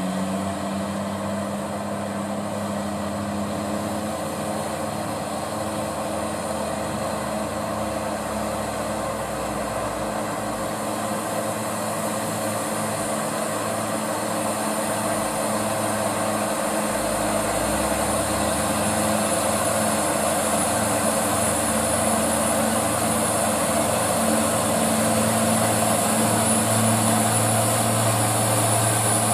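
Diesel engines of loaded Hino dump trucks pulling up a long grade: a steady drone that grows slowly louder as the lead truck approaches, with a thin high whine over it that strengthens later on.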